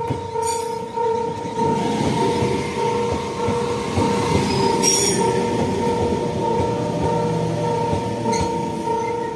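Japanese railway level-crossing alarm ringing its pulsing two-tone electronic bell while a train runs over the crossing, its wheels clicking over the rail joints with brief high wheel squeals.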